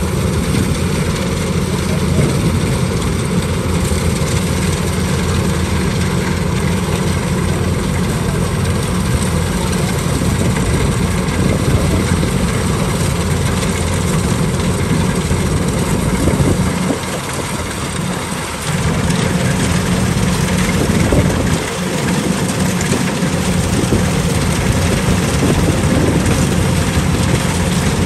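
Tracked rice combine harvesters running steadily under load as they cut lodged rice, a continuous engine and machinery rumble. The low rumble drops away briefly twice in the second half.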